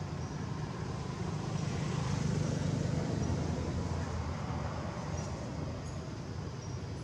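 Low, steady rumble of road traffic that swells once a couple of seconds in, as a vehicle passes, and then fades back.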